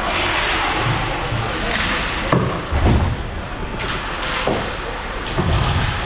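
Ice hockey play in a rink: several heavy thuds and slams against the boards, loudest about halfway through, over a steady haze of arena noise.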